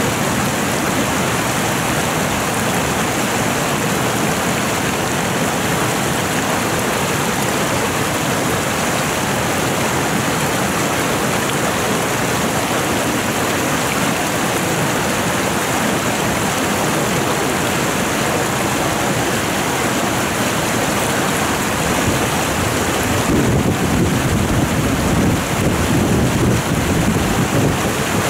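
Fast-flowing mountain river rushing over rocks: a steady, loud wash of water. In the last few seconds a deeper rumble grows louder underneath it.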